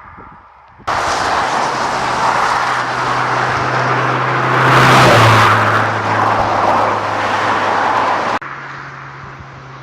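Lotus Elise S2's Rover K-series four-cylinder engine as the car drives past: the engine note swells to a peak mid-way, then drops in pitch as it goes by. It starts suddenly about a second in and cuts off near the end, leaving a quieter engine hum.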